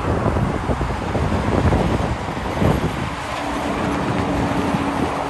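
Highway traffic, with a conventional semi-truck's diesel engine and tyres passing close by. A steady hum comes in a little past halfway.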